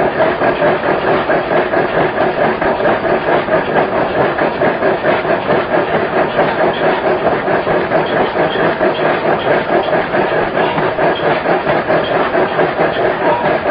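Power forging hammer running with a rapid, even pulsing of about five beats a second while a red-hot disc forging is worked on its anvil, rounding and flattening its barrelled side.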